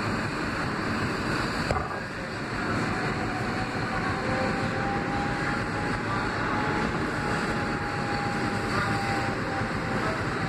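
R160 subway train running through a tunnel, heard from inside the lead car: a steady rumble of wheels on rail, a sharp click a little under two seconds in, and a faint high whine that holds through the middle and fades near the end.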